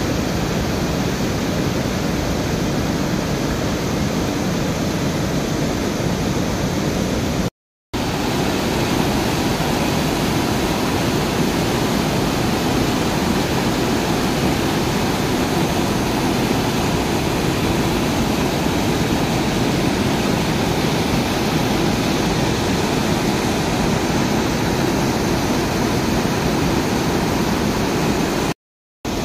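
Water rushing over a river weir: a loud, steady roar of white water, broken twice by a split second of silence.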